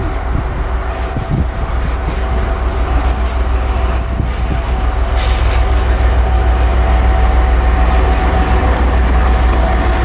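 A 2M62U twin-section diesel locomotive, its two-stroke V12 diesel engines rumbling low and steady, growing louder as it approaches and passes close by.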